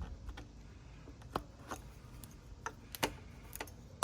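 A handful of sharp, uneven plastic clicks and ticks as the mass airflow sensor's wiring harness clips are worked free of the plastic intake tube.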